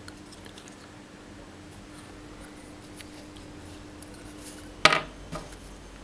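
Hands handling a small plastic bike light and a metal badge clip, giving faint plastic-and-metal clicks, then one sharp click near the end followed by a softer one.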